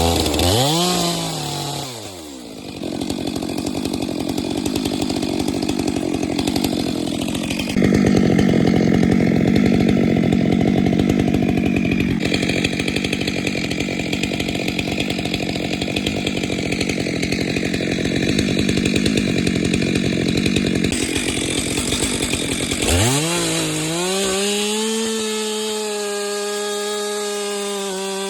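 Chainsaw cutting into a dead ash trunk. Its revs drop away briefly near the start, then it runs under load in the wood for about twenty seconds. Near the end it comes out of the cut and revs up high, running steady and free.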